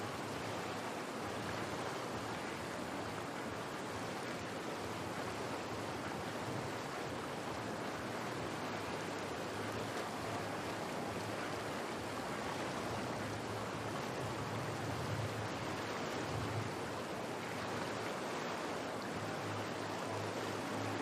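Whitewater rushing steadily through an artificial canoe slalom channel, with a faint low hum underneath.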